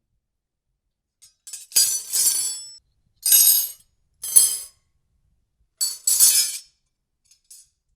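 Glass clinking and ringing: four bright bursts, each from half a second to a second long, with faint small clinks before them.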